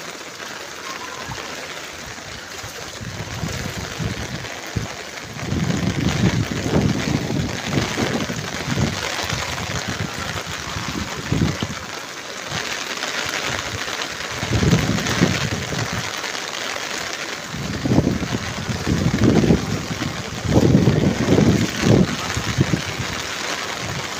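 Heavy monsoon rain falling on a flooded road, a steady hiss, with irregular low rumbling surges coming and going through the middle and later part.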